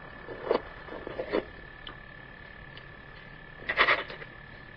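A steady high-pitched whine, with a few brief scuffs or rustles and a louder rustling burst just under four seconds in.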